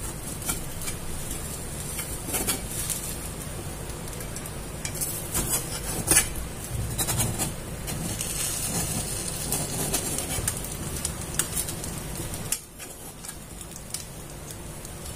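A knife blade scraping and clicking around the rim of a pan, loosening the edges of a pan-baked layered pathiri, over a steady low hiss. The hiss drops quieter about twelve seconds in.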